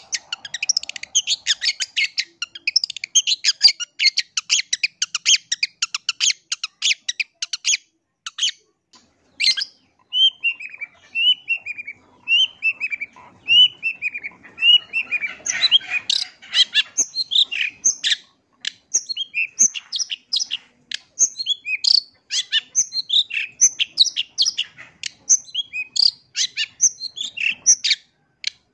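Long-tailed shrike (pentet) singing a full, varied song: about eight seconds of rapid chattering notes, a short pause, a run of short falling whistles, then a fast medley of mixed notes.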